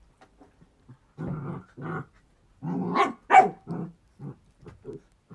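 A dog barking and growling in a string of short barks, the loudest about three and a half seconds in.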